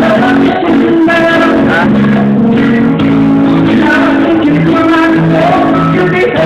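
Live band music: a man sings into a microphone over an electric bass guitar and other instruments.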